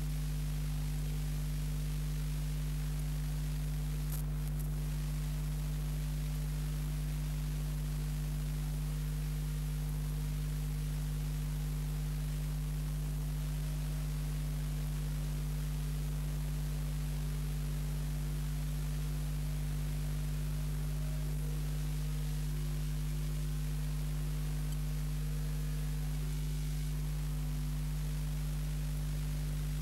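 Steady electrical mains hum, a low buzz with several fixed tones, over constant hiss, with a faint click about four seconds in. It is transfer noise on a silent film: nothing from the scene itself is heard.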